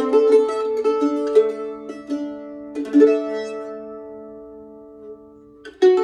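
Newly built mandolin with a red spruce soundboard and curly maple back and sides, freshly strung and only about an hour under string tension, being played: a quick run of picked notes, a chord about halfway through left ringing and fading, then playing picks up again near the end.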